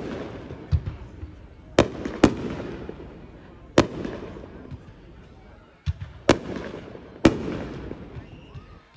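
Aerial fireworks shells bursting overhead: about six sharp bangs at uneven intervals, each followed by a rolling rumble that dies away.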